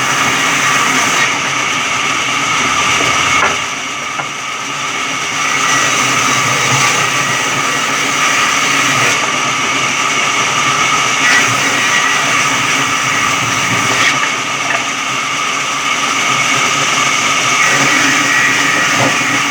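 Electric sawmill running: a steady, loud machine noise with high whining tones. It drops briefly quieter about four seconds in.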